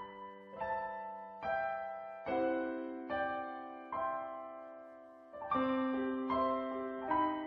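Slow, gentle background piano music: a note or chord struck about once a second, each left to ring and fade before the next.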